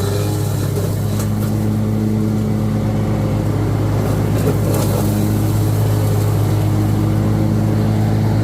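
Riding lawn mower engine running steadily with a constant low hum.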